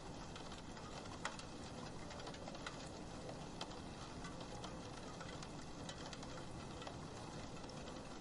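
Rain falling on a roof window: a steady hiss with scattered drops tapping, and a few louder taps in the first few seconds.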